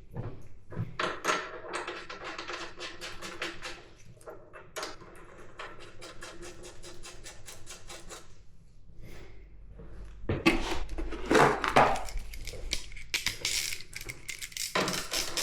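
Metal tools and motorcycle parts clinking and knocking during assembly work. It starts with runs of quick, evenly spaced clicks, and louder knocks come about ten to twelve seconds in.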